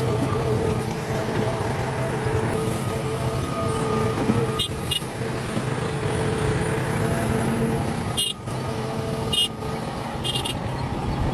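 Heavy diesel earthmoving machinery running steadily with a constant engine drone. Several short, high squeaks cut through it in the second half.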